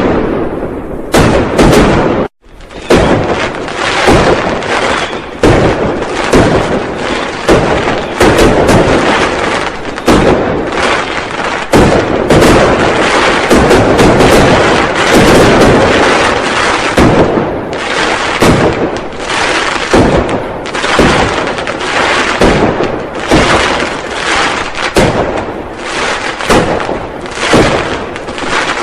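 Firecrackers going off in a dense, continuous barrage of sharp bangs and crackles, many each second, breaking off for an instant about two seconds in.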